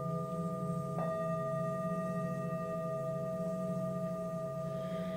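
Singing bowl ringing with a sustained, wavering low hum and several steady overtones. About a second in, a new higher tone is struck and rings on over the bowl.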